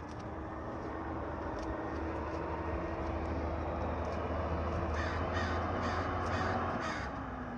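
Green waste collection truck's engine running and growing steadily louder, easing off again near the end with a drop in pitch. A crow caws several times in quick succession over it, about five seconds in.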